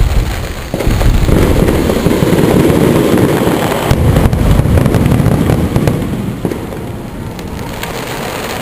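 Aerial firework shells bursting, two sharp bangs at the start and about a second in, then many bursts merging into a continuous loud rumble with crackle that eases off over the last couple of seconds.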